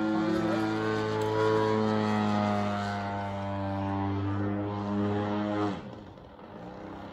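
ZG 62 cc two-stroke gas engine of a large-scale radio-controlled Pitts Special model plane running at high power in flight, its pitch wavering slightly. A little before the end the engine sound falls away abruptly to a much lower level.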